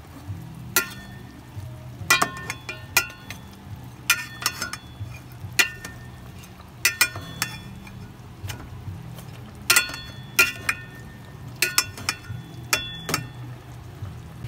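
A metal spoon stirring chicken adobo in an aluminium pot, knocking and scraping against the pot's sides in short runs of ringing clinks every second or two, over a low steady hum.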